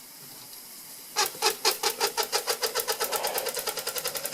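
Doll 320/3 upright toy steam engine starting up: after a second of quiet its quick, clicky exhaust beats begin at about four a second and speed up to about ten a second, showing that the slip eccentric takes up and drives the valve.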